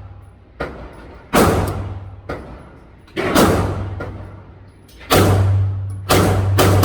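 Shots from a Tisas PX9 Gen 3 9mm pistol, each with a long echoing tail: four shots about two seconds apart, coming faster near the end. Fainter sharp cracks fall between them.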